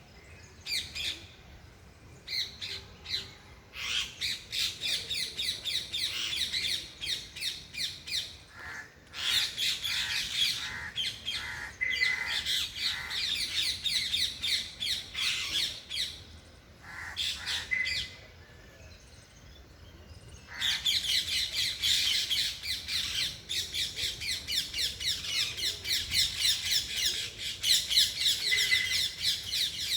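Parrots calling in bouts of rapid, shrill, repeated squawks lasting several seconds, with short quieter lulls between.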